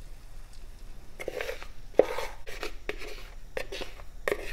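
The last of the beaten eggs being scraped out of a mixing bowl into a frying pan: a series of short, rough scraping strokes, with a sharp knock about two seconds in.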